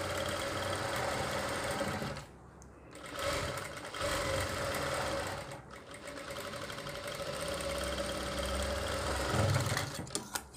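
JACK industrial lockstitch sewing machine running as a facing strip (falsi patti) is stitched onto an armhole, its motor and needle going steadily with two short pauses, about two seconds and five and a half seconds in. A few sharp clicks near the end.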